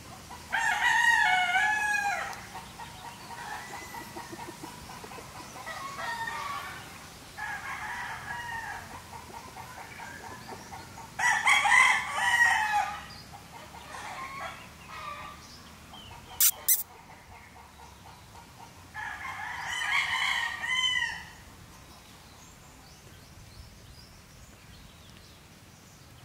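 Gamefowl roosters crowing: three loud crows of about two seconds each, spread through the stretch, with fainter crows and clucks between them. Two sharp clicks come about two-thirds of the way through.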